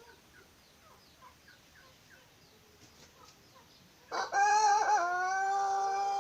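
Faint short chirps, then about four seconds in a white Pelung rooster starts to crow: a wavering opening that settles into one long, steady held note, still going at the end.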